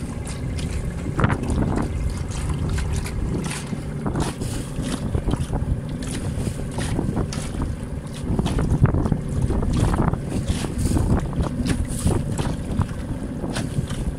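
Wind rushing over the microphone while water splashes irregularly against the hull of a small boat under way on choppy sea.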